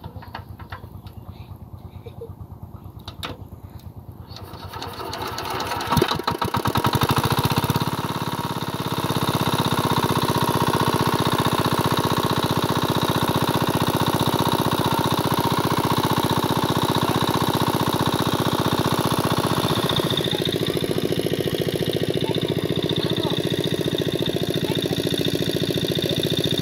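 Small single-cylinder diesel engine driving a water pump, running slowly at first, then sped up about five to eight seconds in, with a sharp knock as it picks up, and running steadily faster after that while it pumps water.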